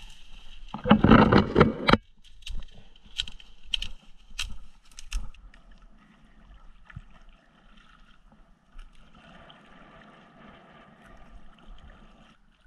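Leaves and branches rustling loudly for about a second as someone pushes through dense brush, then a stand-up paddleboard paddle working in lake water: scattered light splashes and drips, then a softer steady wash.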